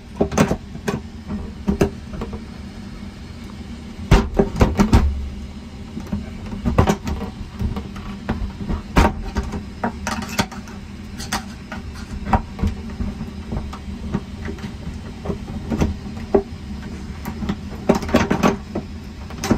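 A stuck airplane lavatory door being worked by its metal lever handle: repeated clicks, clunks and rattles, bunched about four seconds in and again near the end. Underneath is the steady hum of the aircraft cabin.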